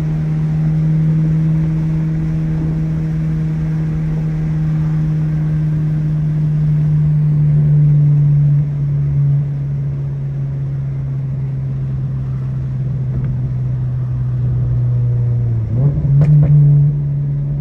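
2022 Toyota GR86's 2.4-litre flat-four running through an aftermarket cat-back exhaust, held at a steady engine speed with an even low drone that sags slowly in pitch. Near the end the revs dip briefly and climb back quickly, with a single click.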